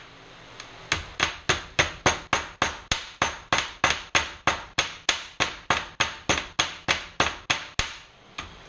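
Hammer blows on metal, working on the pressure washer pump: one strike, then a steady run of sharp ringing blows at about three to four a second that stops about a second before a last single blow.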